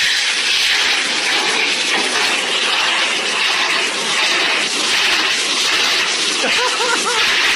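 Pet grooming blow dryer running, a loud, steady rush of air from its nozzle.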